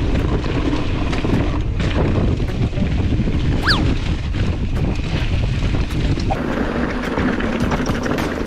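Wind buffeting an action camera's microphone as a mountain bike rides a rough, rocky trail, with rattles and knocks from the bike and tyres over the ground. A brief falling squeak sounds about halfway through.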